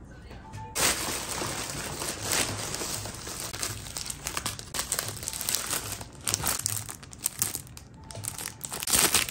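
Packaging being handled and unwrapped, crinkling and rustling in bursts that start about a second in, loudest near the end.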